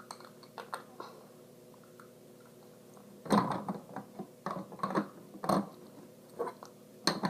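Small plastic Lego pieces being handled, with a few faint clicks at first, then irregular clicking and rattling from about three seconds in as parts are pressed and set onto the build.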